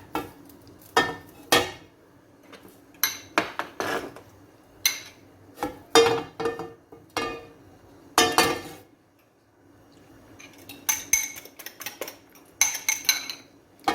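A metal utensil clinking and knocking against kitchen dishes and a pan in irregular strikes, some in quick runs of several, each with a short ring.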